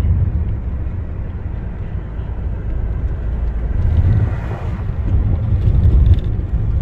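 Steady low rumble and road noise of a moving car, swelling and easing a little.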